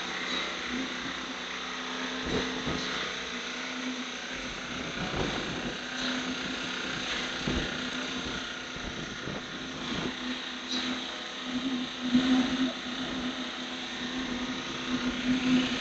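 Construction-site machinery engine running with a steady hum under a hiss, with a few dull thumps.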